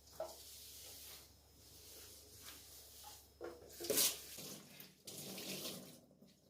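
Water running from a kitchen tap into the sink, with a few sharp knocks and clinks, the loudest about two-thirds of the way through. The water stops near the end.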